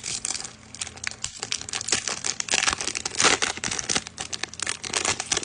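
Foil wrapper of a Pokémon card booster pack crinkling as it is torn open and handled, with a louder stretch of crackling about three seconds in.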